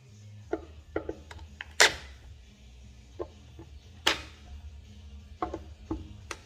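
Irregular light clicks and knocks from screws and tools being handled, with two sharper knocks about two and four seconds in, over a faint low steady hum.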